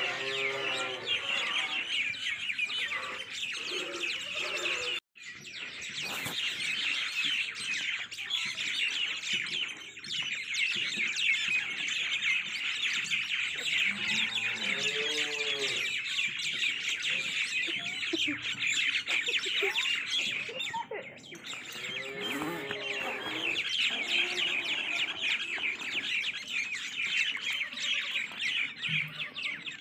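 Dense, steady chorus of many small birds chirping rapidly. A few lower, pitched calls that rise and fall stand out about halfway through and again about two-thirds through. The chorus cuts out for an instant about five seconds in.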